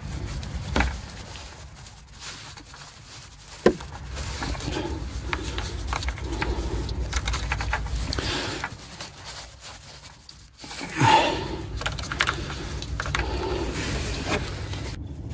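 Hands fitting a new plastic intercooler sensor into its port on a van's intercooler: scraping and rustling handling noise with a couple of sharp clicks, one just under a second in and one a little before four seconds in.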